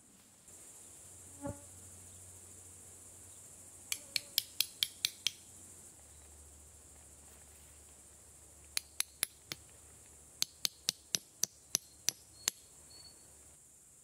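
Metal tent stake being hammered into forest ground with a large knife: sharp metallic taps in three quick runs of about four to five strikes a second, over a steady high insect buzz.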